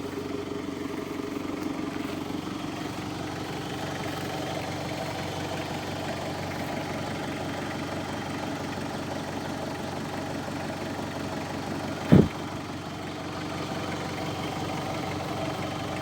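Vehicle engine running steadily at low revs, with a single sharp knock about twelve seconds in.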